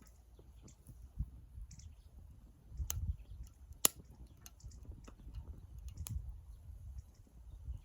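Small wood fire crackling in a Sierra stove: scattered light pops and ticks, with one sharp pop about four seconds in, over a low uneven rumble.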